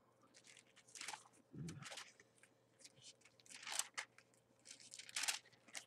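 Thin paper pages of a Bible rustling as they are leafed through to find a passage, in a few short, faint rustles.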